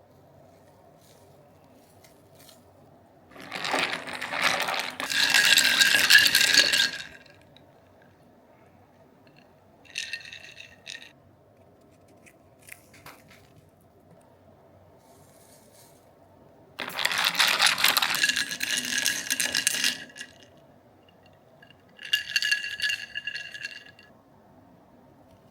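Four bursts of rattling clatter with a metallic ringing, two long and loud and two short, over a low steady machine hum.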